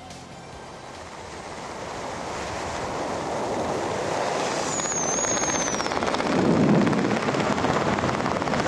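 Wind rushing over the camera's microphone during a descent under a parachute canopy, growing steadily louder, with a brief high whistle that falls in pitch about halfway through.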